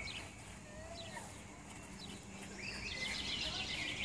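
Small songbirds chirping in short, high calls, with a fast twittering song starting near the end.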